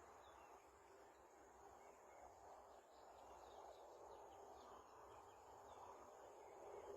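Faint outdoor ambience: a steady high insect drone with a few short bird chirps in the middle, over a soft hiss.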